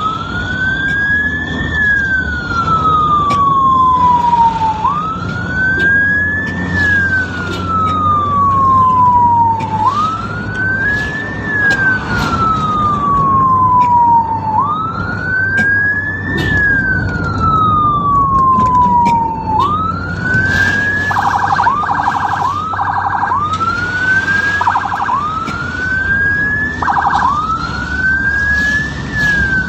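Ambulance siren wailing, a slow rise and fall repeating about every five seconds. In the last third, bursts of a rapid high-low warble are added. Vehicle engine and road rumble sit beneath it.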